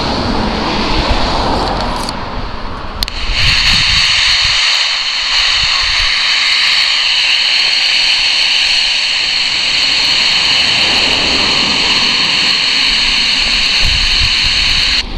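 A low rumble, then about three seconds in a click and a loud steady hiss of open-channel static from a Harvard WT1 CB walkie-talkie, a set with no squelch, so its receiver hisses whenever no signal is coming in.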